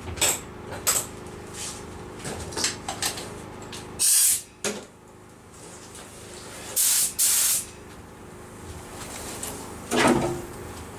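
Air-fed paint spray gun triggered in short bursts of hiss: one at about four seconds and two close together near seven seconds, with scattered knocks of handling around them and a thump near the end.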